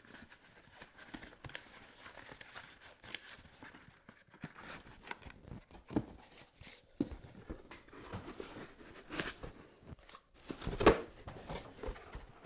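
Quiet rustling of paper and cardboard packaging with scattered light knocks as items are handled in a shipping box, and one louder thump near the end.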